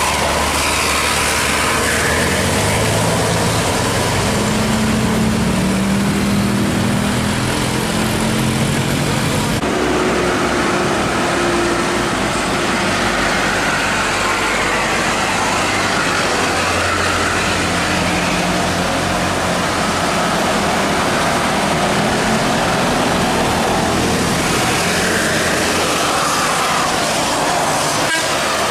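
Buses running and sounding multi-note 'telolet' musical horns, held tones stepping from one pitch to the next, over a dense bed of engine and traffic noise with people's voices.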